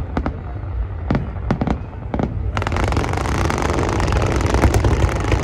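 Fireworks going off: a few separate sharp bangs, then about two and a half seconds in a dense crackle of many rapid pops.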